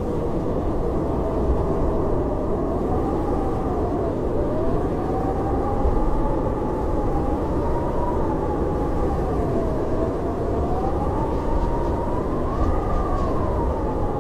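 Howling blizzard wind: a steady low rush with a whistling tone that slowly rises and falls.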